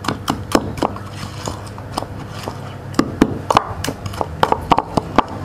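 Pestle pounding chili and garlic paste in a wooden mortar: a run of sharp knocks, coming faster in the second half.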